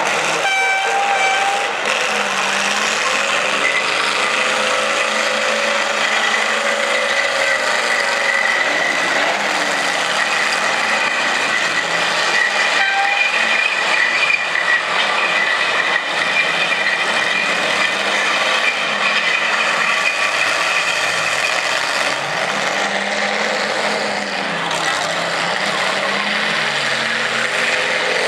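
Demolition derby cars' engines running and revving together in a loud, continuous din, their pitches wavering up and down. A high, steady, horn-like tone runs through the middle stretch.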